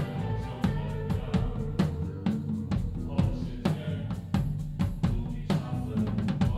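Drum kit played live in a steady groove, with sharp hits about three times a second over the band's sustained bass notes.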